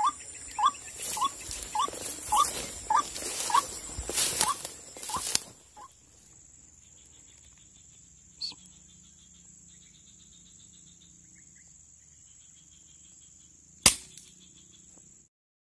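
An animal's short rising call repeats about every half second over rustling in grass, fading out after about six seconds. Near the end comes a single sharp shot from a Sharp Tiger pump-action air rifle.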